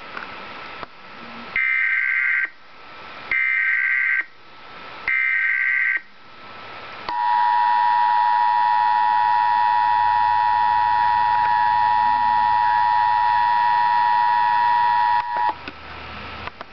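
Emergency Alert System broadcast: three short bursts of warbling digital SAME header data tones, then the EAS attention signal, a steady two-tone alarm held for about eight seconds before it cuts off. Together they announce a severe thunderstorm warning.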